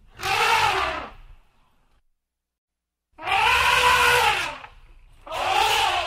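Elephant trumpeting: three loud calls, each about a second long, rising and then falling in pitch, with a low rumble under each. The first comes right at the start, a longer one about three seconds in, and the third near the end.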